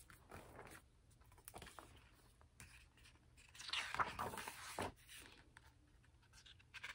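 Hardcover picture book being opened and its pages turned by hand: faint paper rustling with light handling ticks, loudest about four seconds in.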